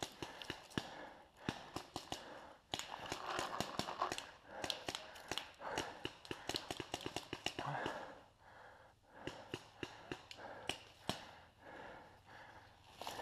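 Footsteps crunching through dry fallen leaves and twigs, with many irregular sharp crackles and snaps.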